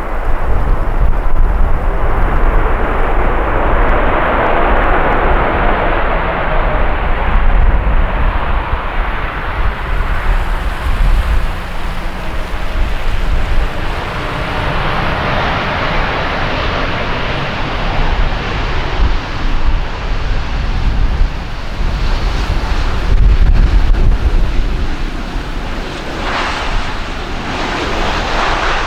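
Boeing 787 twin-engine airliner passing close on its landing approach, a continuous jet rumble and roar. Wind buffets the microphone throughout.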